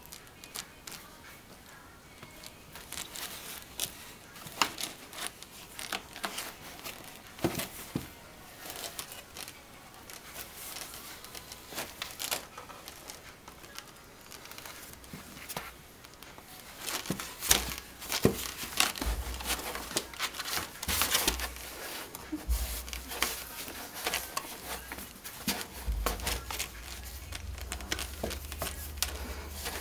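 Close rustling and crinkling with many scattered sharp clicks and crackles, growing denser and louder a little past halfway, when a low rumble also comes in.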